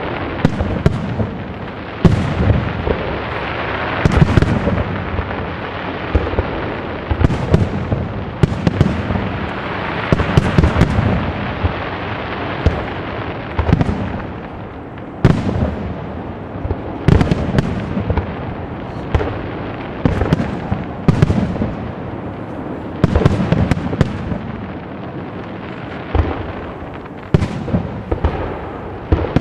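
Aerial firework shells bursting in a professional display: sharp bangs every second or two, each trailing off, over a continuous rumble.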